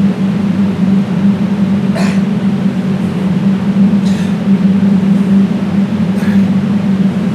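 A loud steady low hum, with a faint short swish about every two seconds.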